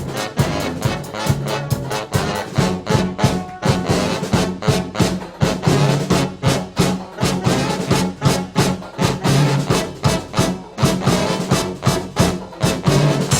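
Brass band playing live: trumpets and trombones over sustained low brass notes, driven by a steady beat.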